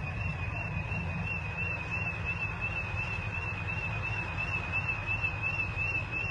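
Motorcycle engines idling in a low, steady rumble, under a continuous high warbling tone typical of a shop burglar alarm going off.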